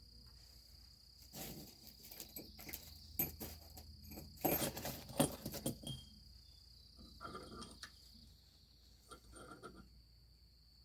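Metal parts and tools clinking, knocking and scraping in irregular clusters, loudest around the middle, during hands-on work on a trailer's S-cam brake assembly. A steady high insect chirr runs underneath.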